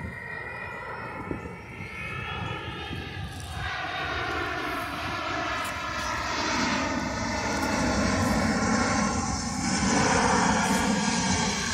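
Large jet transport aircraft passing low overhead. Its engine noise grows steadily louder, with several whining tones that slowly drop in pitch.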